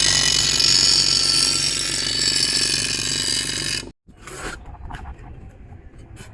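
Steady rasping of abrasive on the steel cleaver blade, with a motor hum beneath it, typical of a power sander or grinder running. It cuts off suddenly about four seconds in, followed by a few quieter clicks and knocks.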